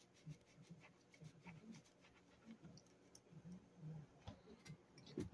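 Near silence: quiet room tone with faint, irregular small clicks.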